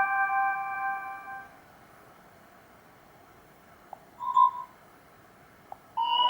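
Stock ring and notification tones from a Black Fox B5 smartphone's speaker, previewed one after another: a chime fades out over the first second and a half, a short single blip sounds about four seconds in, and a new tone starts near the end. A faint click comes just before each of the later two.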